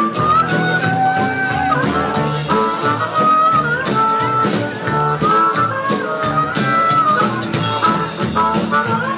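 Live blues band playing: harmonica wailing held, bending notes over electric guitar, upright bass and a drum kit keeping a steady beat.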